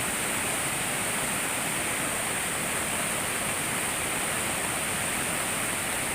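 Floodwater rushing in a steady, unbroken roar of noise.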